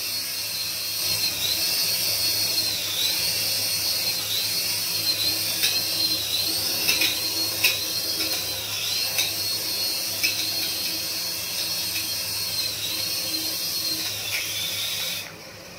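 Small electric motors and coaxial rotors of a toy RC helicopter whining at high pitch as it hovers, the pitch dipping and recovering over and over. A few light knocks come around the middle, and the whine cuts off suddenly shortly before the end.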